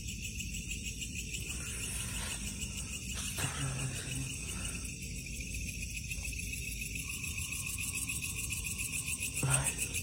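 Night insects, crickets, trilling steadily at two high pitches. A few faint short sounds come in the middle, and a faint steady tone starts about seven seconds in and lasts about two seconds.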